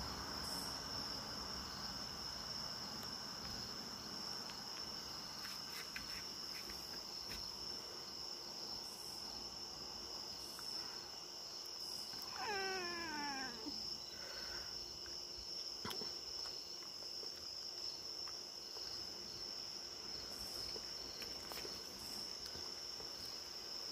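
A Maine Coon cat gives one falling meow, about a second long, roughly halfway through, over insects chirring steadily in one high, even tone.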